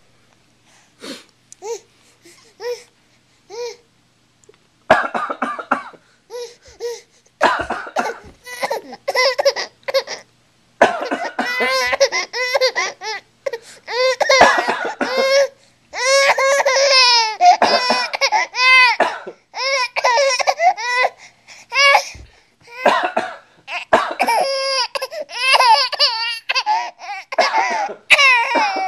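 High-pitched laughing mixed with coughs. It starts as a few short, separate sounds, then turns into long, almost unbroken fits from about five seconds in.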